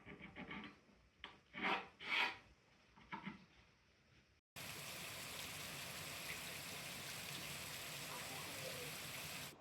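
A few short scrapes and knocks of hand woodworking, then after a sudden cut about halfway, the steady even hiss of heavy rain.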